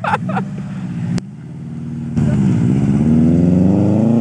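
A duck call mounted on a Subaru Impreza WRX STI's turbo blow-off valve quacks briefly as the throttle closes. Then the car's turbocharged 2.5-litre flat-four pulls away, louder from about two seconds in, its note rising.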